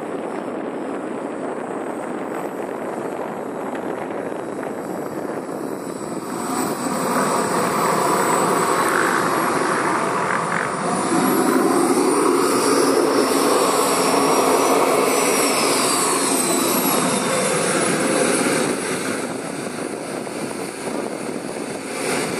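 JetCat P160 model jet turbine in a Skygate Hawk RC jet, running at low power as the model taxis: a steady jet rush with a thin high whine. It grows louder about seven seconds in, the whine rising and then falling in pitch in the middle, and eases off near the end.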